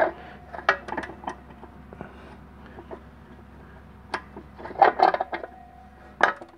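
Scattered metallic clicks and clinks from a clutch spring compressor tool being worked on a 700R4 transmission's low/reverse clutch piston. A cluster of louder clinks comes about five seconds in, and a couple ring briefly.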